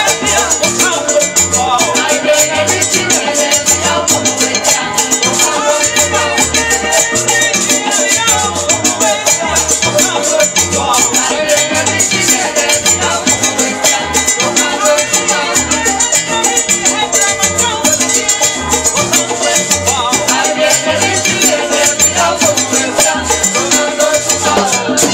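Live salsa music: a stepping bass line and held notes under a güiro scraped in a fast, steady rhythm.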